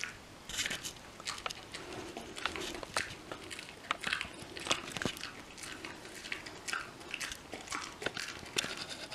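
Kai Ken dog chewing a Purina Dentalife dental chew: loud munching, with irregular crunchy bites about two a second.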